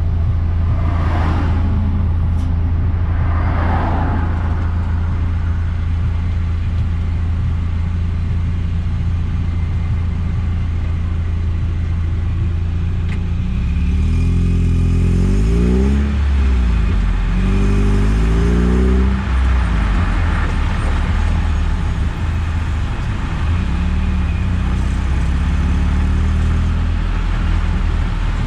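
Mazda Eunos Roadster's inline-four engine and road noise while driving. It runs steadily at first, with two brief whooshing swells in the first few seconds. About halfway through it accelerates, its pitch rising and dropping through gear changes, then settles back to steady running.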